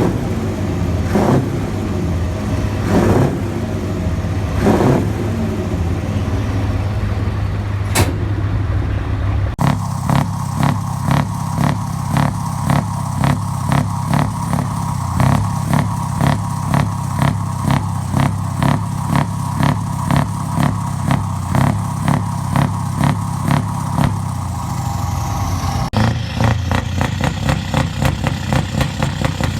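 Heavy truck engine with open, straight exhaust pipes, loud and running. It is revved in a few quick rises and falls at first, then settles into a regular pulsing about twice a second that quickens near the end.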